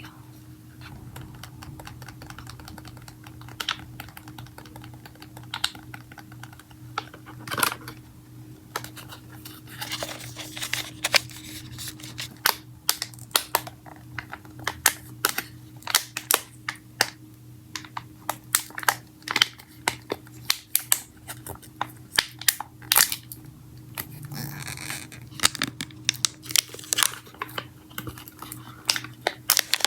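Close-miked hands opening and handling small plastic packaging: an irregular run of sharp clicks, taps and crinkles that grows much busier about ten seconds in, over a steady low hum.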